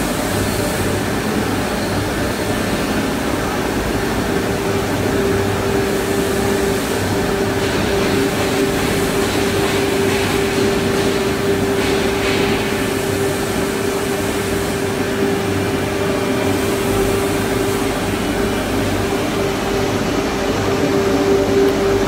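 Hanger-type shot blasting machine running: a steady machine hum and hiss, with a steady whine that comes in about four seconds in and holds.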